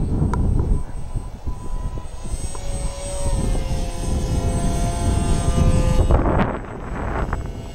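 Small foam RC parkjet's electric motor and propeller whining as the plane flies over, the pitch easing slightly downward before fading out about six seconds in, under heavy wind rumble on the microphone.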